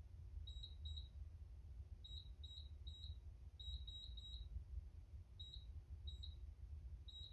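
Short, high electronic beeps, about a dozen in clusters of two or three, from a Trans-Lux Fair-Play PS-6000 LED scoreboard system, one beep per key press as its clock and score digits are set. A faint low hum lies underneath.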